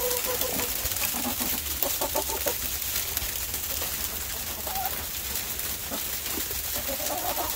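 Chickens clucking in short calls, in several bouts, over a steady background hiss.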